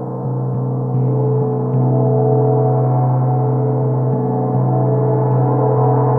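A 24-inch gong made by Grand Master Turkish Cymbals sounding a dense, sustained wash of many overlapping tones, the low hum the loudest. It swells louder about one and two seconds in as it is played on.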